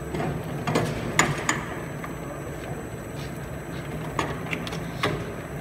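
Steady low hum of a running monofilament bobbin winder line, with a handful of sharp clicks and knocks as bobbins are handled and fitted onto the winder spindles, the loudest about a second in.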